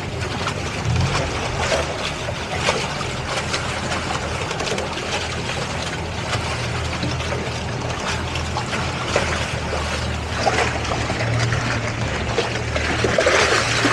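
Towboat's outboard engines running steadily with a low hum while towing a boat lashed alongside, with water splashing and trickling between the two hulls. A rush of wind and water noise grows louder near the end.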